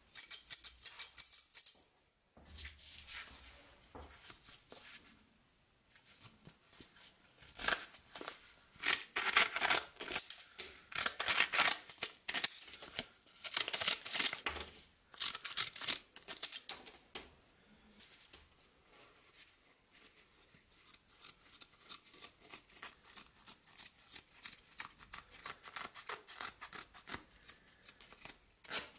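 Restored scissors snipping repeatedly as they cut through a sandpaper disc and then cloth. Near the end the cuts come in a quick regular run of about two or three snips a second.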